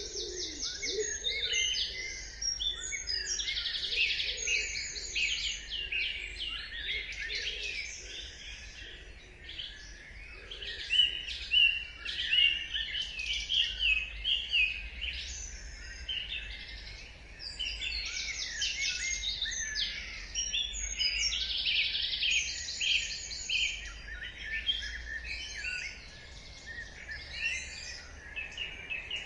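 Dawn chorus: several songbirds singing at once, a dense mix of chirps, whistled phrases and rapid trills that never pauses.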